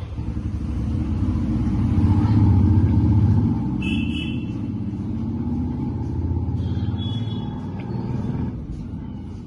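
A steady low engine rumble, swelling about two seconds in and easing after three and a half, with a faint steady whine above it. Two brief high chirps come through about four and seven seconds in.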